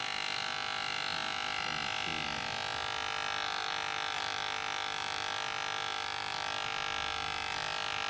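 Cheap electric hair clipper running with a steady buzz while cutting hair.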